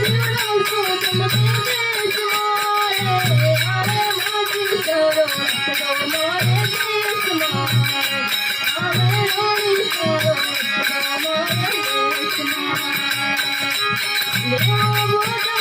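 Instrumental interlude of a live Rajasthani folk bhajan: a wavering melody over repeated low drum beats.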